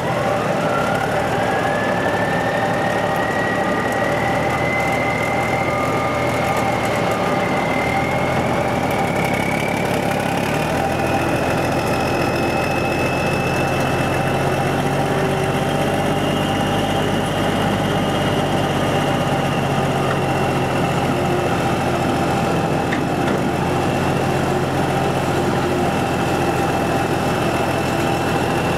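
Farm harvest machine running steadily, its engine note under a whine that climbs in pitch over the first ten seconds or so as the machine comes up to speed, then holds steady.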